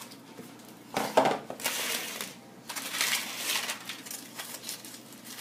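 Two sharp knocks about a second in, then aluminium foil crinkling and crackling in spells as it is pulled open around a baked potato.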